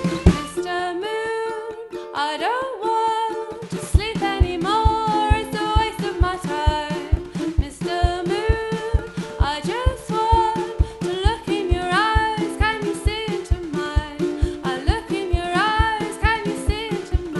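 Background music: a song with a singing voice and a steady beat, the beat pausing for a few seconds near the start before coming back in.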